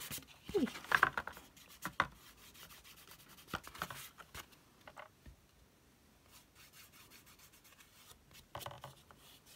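Sizzix Lustre Wax being rubbed onto the edges of cardstock, a light, uneven rubbing with a few small scrapes and taps in the first couple of seconds.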